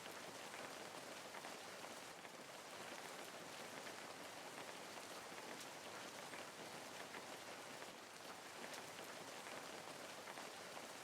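Steady rainfall, an even hiss of rain with the faint ticks of single drops.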